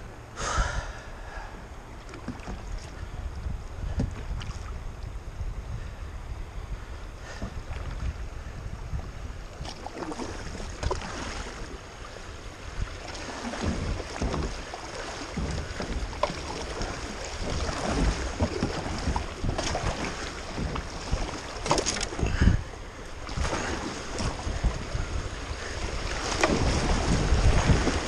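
Kayak paddle blades dipping and splashing on alternating strokes over rushing river water, with wind buffeting the microphone. The water grows louder near the end as the kayak runs into rapids.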